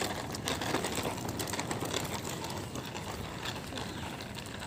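Toddler's tricycle with small hard wheels rolling over rough, cracked asphalt: a steady rattle with many irregular clicks.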